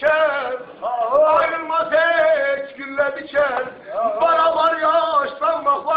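A man singing a Turkish song, holding long, wavering, ornamented notes with short breaks between phrases.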